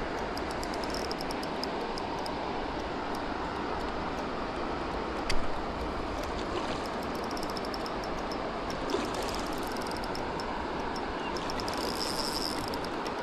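Steady rush of a flowing stream, with faint fine clicking in the first few seconds and one sharp knock about five seconds in, and a smaller one near nine seconds.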